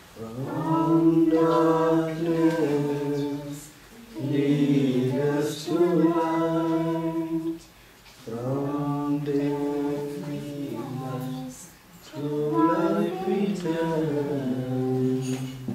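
Devotional chant sung by voices in four long held phrases, each about four seconds, with short breaks between them.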